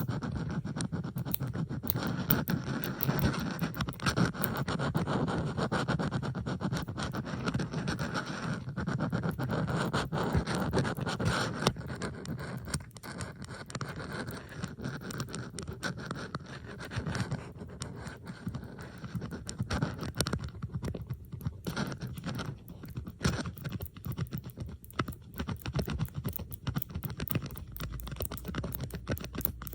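Bobby pins handled close to the microphone in layered ASMR: a dense mix of small metallic clicks, taps and scrapes. The texture is fuller for roughly the first twelve seconds, then thins to sparser, more separate clicks.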